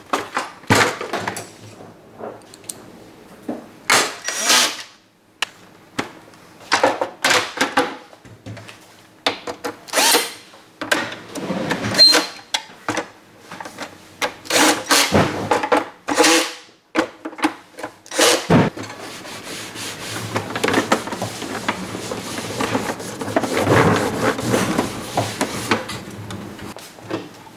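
A cordless drill/driver running in short bursts, about eight times, driving screws into the plastic housing of a gummed tape dispenser, with knocks of handling between. In the last third comes a longer stretch of steady rubbing noise.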